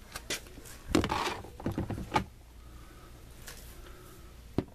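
Short metallic knocks and clicks of a 17 mm wrench, lengthened with a larger cheater wrench, being worked on the oil-pan drain plug to break it loose. There is a brief scrape about a second in and a sharp click near the end.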